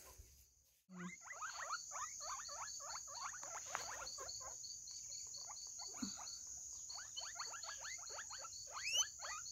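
Guinea pigs squeaking: a fast run of short, falling squeaks, several a second, starting about a second in and thinning out for a moment near the middle.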